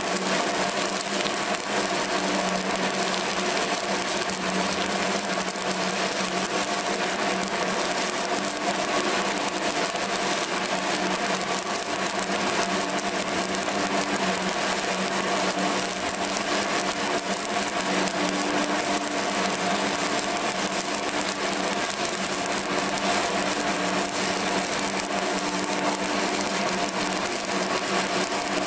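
Stick (shielded metal arc) welding arc burning steadily as a flux-coated electrode lays a horizontal 2G groove weld: a continuous crackle and sizzle with a steady hum beneath it.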